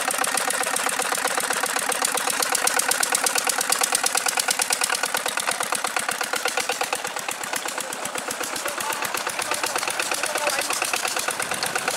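Petter single-cylinder diesel engine running steadily with a rapid, even knocking beat, driving a flat belt to a tube-well water pump.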